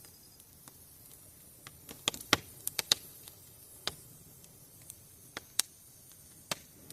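Bonfire wood crackling: about ten sharp, irregular pops, most of them bunched around two to three seconds in.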